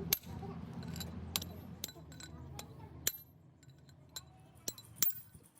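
Metal objects clinking: several sharp, separate clinks over a low steady hum that drops away about three seconds in.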